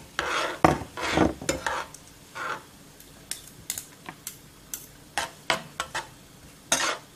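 Metal cooking utensils scraping and tapping against a stone-coated nonstick wok as minced garlic is stirred in olive oil. The strokes are irregular, busier in the first couple of seconds and then sparser.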